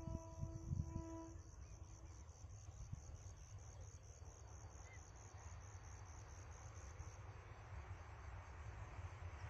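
Crickets chirping with a rapid, even pulse until about seven seconds in, over a low rumble. A distant train horn sounds briefly in the first two seconds, and an approaching train grows as a rising rush of noise near the end.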